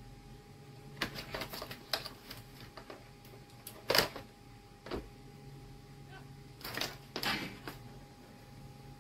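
Handling noise: scattered clicks, rustles and light knocks as wires and clip leads are moved about on a workbench, the loudest knock about four seconds in and another flurry near the end, over a faint steady hum.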